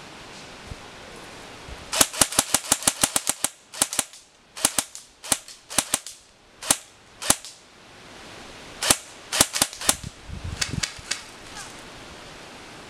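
Airsoft guns firing: a rapid burst of about a dozen sharp shots starting about two seconds in, then single and paired shots, and another short cluster of shots about nine seconds in.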